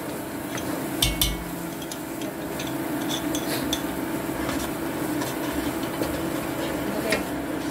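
A metal spoon stirring and scraping thick tomato paste and onions in an enamelled cast-iron pot, with scattered clicks of the spoon against the pot and a sharper knock about a second in, over a steady low hum.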